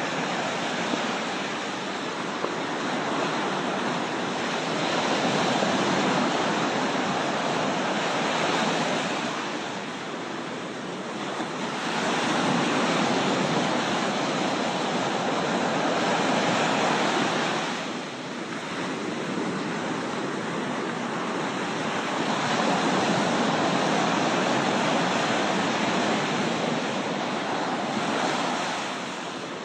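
Loud, even rush of water that swells and eases several times.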